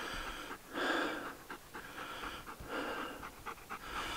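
Breathing: a few soft, uneven breaths.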